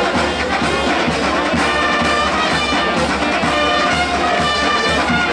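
Brass band with trumpets and trombones playing a tune with a steady beat.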